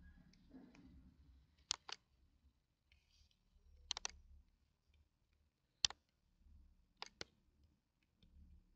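Computer mouse clicking, mostly in quick double-clicks, about five times spread over several seconds, with a faint hum underneath.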